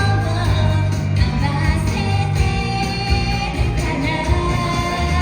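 Live pop band music with a voice singing over a steady, heavy bass.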